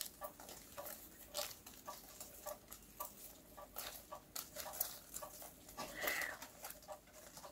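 Faint crumbling and rustling of potting soil and roots as a rhizomatous houseplant's root ball is pulled apart by hand, with many small scattered ticks and crackles.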